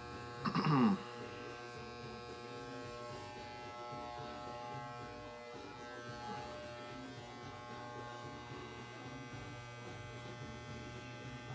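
Corded electric hair clippers buzzing steadily as they cut a man's hair. About half a second in there is a brief, louder voice sound that falls in pitch.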